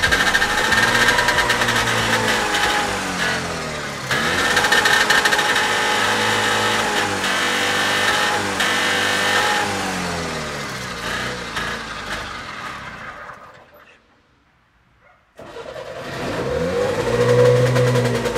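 Trabant 601's two-stroke two-cylinder engine revving over and over, its pitch rising and falling with each blip of the throttle. About thirteen seconds in, the sound fades to near silence for a couple of seconds, then the engine comes back with another rev.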